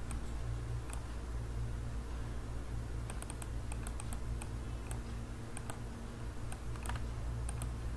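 Scattered sharp clicks of a computer mouse and keyboard being used, more frequent after about three seconds in, over a steady low hum.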